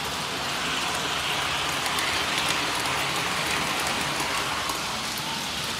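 Ives 3243 standard gauge tinplate train running on three-rail track: a steady rushing rumble of the motor and wheels on the metal rails, swelling a little as the cars pass close, about two seconds in.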